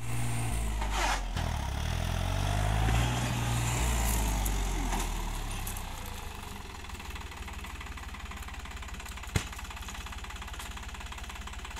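New Holland 3600 TX tractor's three-cylinder diesel engine running as the tractor moves across the field with its plough. It is louder and shifting in pitch for the first five seconds or so, then settles lower and quieter with an even firing beat. A single sharp click comes about nine seconds in.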